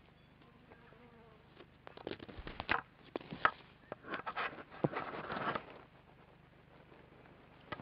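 Adult female kākāpō moving right against the nest camera: her feathers and body brushing close to the microphone and her feet scuffing the nest litter, in a run of quick, irregular rustles and scrapes that starts about two seconds in and dies away before the end.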